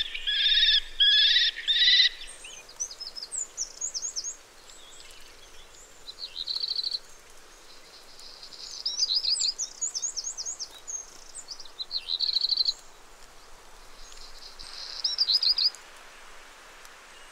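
A young common kestrel calling, four trilled calls in the first two seconds. After that, small songbirds chirp with quick, high, down-slurred notes and short buzzy phrases.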